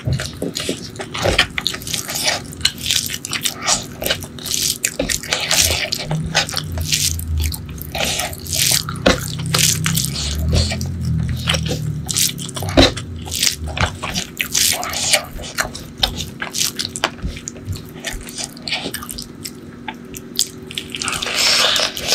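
Close-miked wet eating sounds: fingers squelching white rice into butter chicken gravy, with many small wet clicks and mouth smacks of chewing. Near the end, a bite into a curried chicken drumstick.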